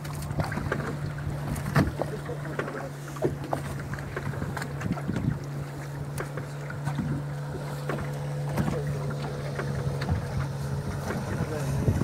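A boat engine idling with a steady low hum, with scattered light knocks and clicks as a handline is hauled in over the side of the boat.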